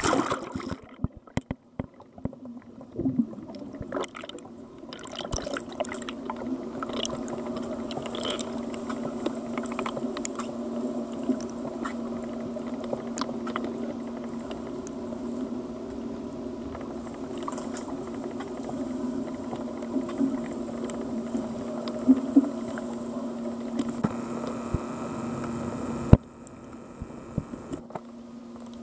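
Swimming-pool water heard through an underwater camera. Splashes and knocks come in the first few seconds as the camera goes under the surface, then a steady underwater hum with a few held tones and scattered clicks. The level drops suddenly near the end.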